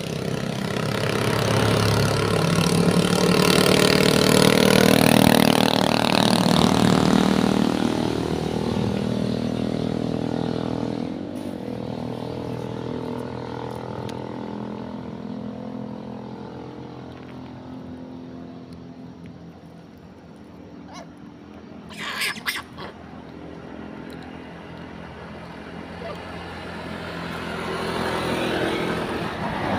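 A motor vehicle passes on the road: its engine grows louder over the first few seconds, then fades away slowly. A brief cluster of sharp clicks comes about two-thirds of the way through, and another vehicle is heard approaching near the end.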